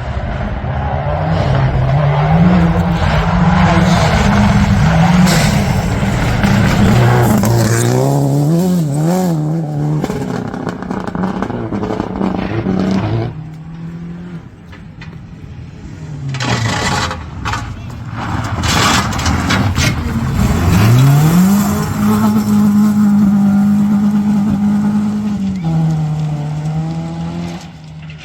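Rally car engines being driven hard on a gravel stage, the revs climbing and dropping through the gear changes, with rough gravel and tyre noise. It goes quieter about halfway through, then the pitch climbs sharply in a hard acceleration and is held high for a few seconds before a shift drops it back.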